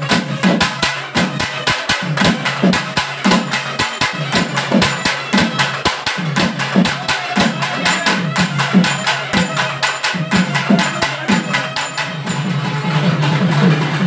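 Hand-played barrel drum beaten in a fast, steady rhythm: a quick run of sharp, dry strokes over deeper beats about twice a second.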